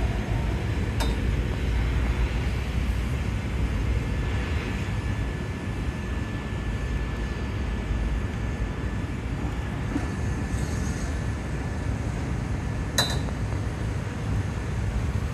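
Steady low rumble of glassblowing hot-shop equipment, with a sharp metal clink about a second in and a louder, ringing clink near the end as the steel blowpipe rolls along the bench rails.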